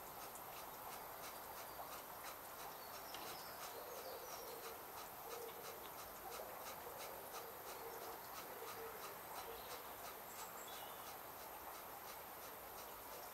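Faint outdoor background: a steady quiet hiss with light, irregular ticking and a few faint high chirps in the middle.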